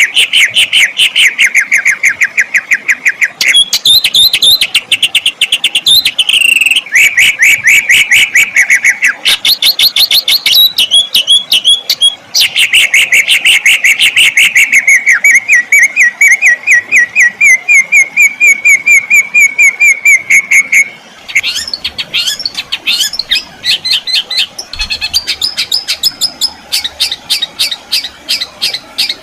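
Songbird song: long, fast rolling trills of rapidly repeated notes that shift between lower and higher pitches every few seconds. After about 21 seconds it changes to sharp, quickly sweeping notes and then a higher, thinner trill.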